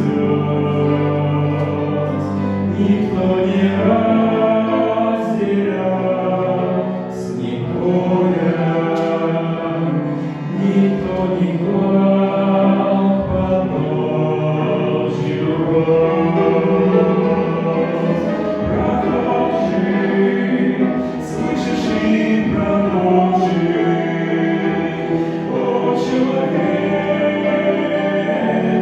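A choir singing a Christian hymn, with many voices holding sustained sung notes.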